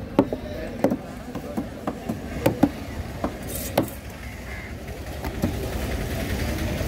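Heavy curved chopping knife hacking through a sweetlip emperor fish's head and bones on a wooden chopping board: a string of sharp, irregular chops, most of them in the first four seconds, fewer after.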